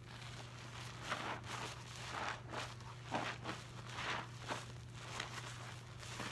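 Sudsy sponges squeezed and wrung by hand in a bowl of dish-soap foam, making wet squelching, crackling squishes about twice a second from about a second in.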